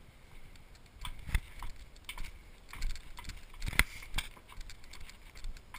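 Footsteps on a gravel-strewn stone floor and paving: irregular crunches and sharp taps, the loudest a little under four seconds in.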